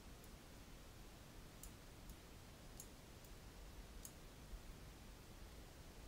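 Faint computer mouse button clicks, about four, spaced a second or so apart, over a low hiss.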